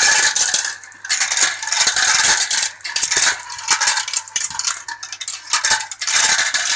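Many glass marbles rolling and clattering down a plastic Galt marble run, a dense rattle of clicks as they drop through chutes and knock against the track, thinning out in short lulls.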